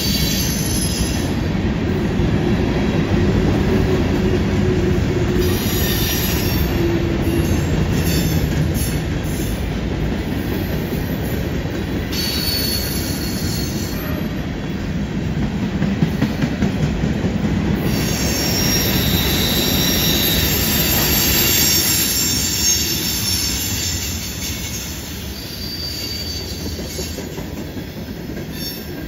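Freight cars rolling slowly through a curve: a steady rumble of steel wheels on rail, with high-pitched wheel flange squeal coming and going, and a few clicks from rail joints.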